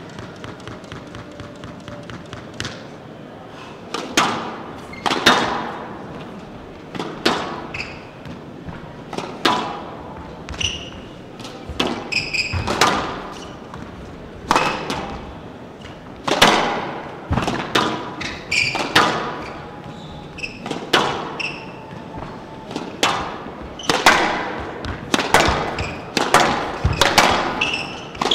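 Squash rally: rackets smacking the ball and the ball hitting the front and glass side walls, sharp hollow hits about one a second that ring in the hall, starting a few seconds in. Short high squeaks of court shoes come between the hits.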